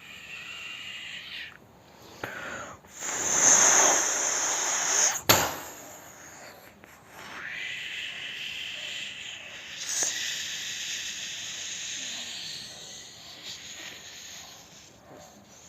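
A man imitating a wind and rain storm with his mouth: breathy hissing and a whistling wind. About three seconds in, a louder rushing gust builds and ends in a sharp crack.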